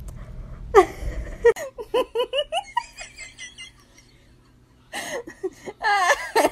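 A person laughing and giggling in a quick run of short bursts, then a pause of about two seconds, then more laughter starting again near the end.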